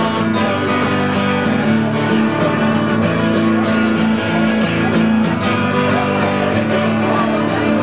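Acoustic guitar strummed steadily in an instrumental break between the sung verses of a song.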